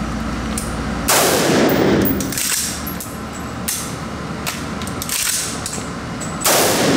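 Two AR-15 rifle shots about five and a half seconds apart, each ringing out through an indoor range. The rifle had just been reassembled with a part left out, which the shooter says keeps it from working.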